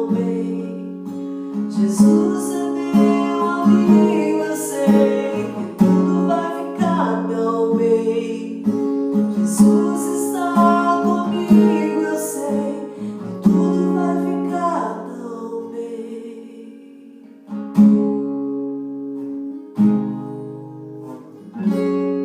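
Acoustic guitar strumming and picking chords in the instrumental close of a worship song. After about fifteen seconds the playing thins to three single strummed chords, each left to ring.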